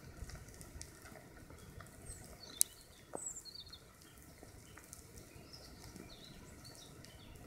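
Faint sizzle of thousands of wood ants crawling over their pine-needle mound: a soft, even crackle made of many tiny ticks. One sharp click comes about two and a half seconds in, and a few short, high bird chirps come around the middle.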